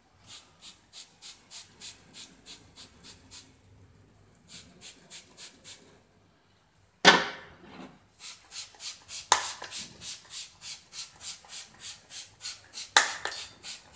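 A brush scrubbing a carbon-caked metal engine accessory bracket in a soda cleaning solution: quick back-and-forth strokes, about three or four a second, working the carbon loose. Three sharp knocks, the loudest sounds, break in about halfway through, about two seconds later, and near the end.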